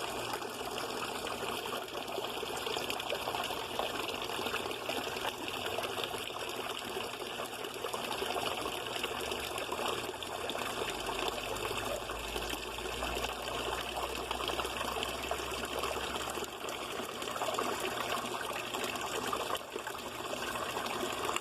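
Steady trickle of running water splashing into a backyard fish pond. A low hum joins in for several seconds in the middle.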